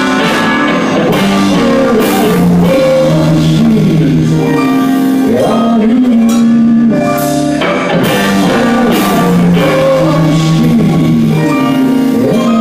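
Indie rock band playing live: two electric guitars, keyboard and drum kit, loud and continuous, with guitar notes bending in pitch now and then.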